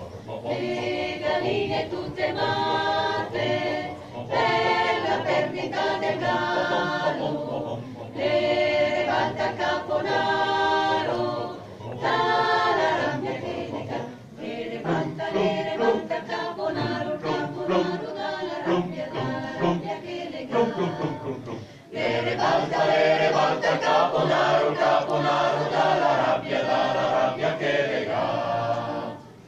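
Choir singing a hymn in long phrases, with short pauses between them.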